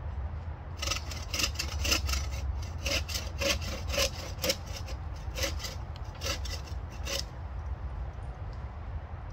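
Bow saw cutting through a wooden stake: a run of quick, rasping back-and-forth strokes, about two a second, that stops about seven seconds in.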